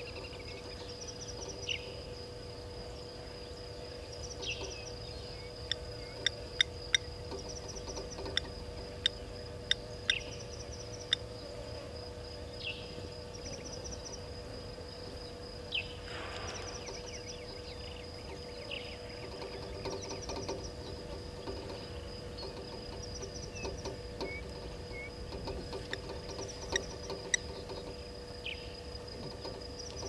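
Morning bush ambience at a waterhole: a steady high insect trill pulsing about every two seconds, with scattered short bird calls. A quick run of sharp clicking notes comes between about six and eleven seconds in.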